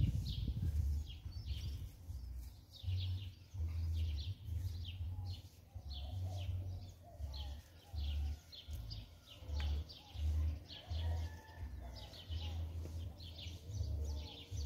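Small birds chirping in quick, falling notes, several a second, with low rumbling bumps on the microphone about once a second.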